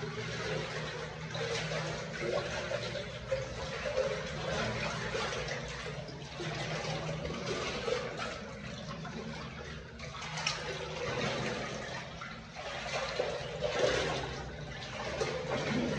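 Water splashing and rushing in uneven surges as someone wades through the shallow spring water running along the rock-cut Hezekiah's tunnel.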